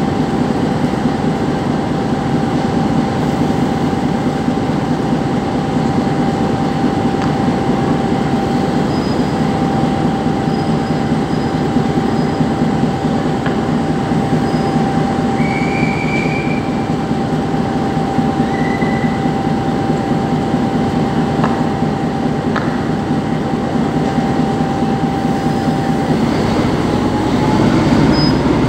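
ČD class 754 diesel locomotive's six-cylinder engine running at standstill, a steady low rumble with a constant whine over it. Near the end the whine rises in pitch and the rumble grows louder as the engine speeds up.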